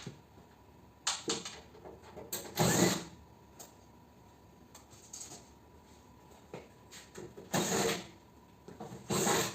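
Intermittent handling noises from dismantling a mini-split air conditioner: short clatters, clicks and scrapes of parts being worked loose, in separate bursts with quiet gaps between.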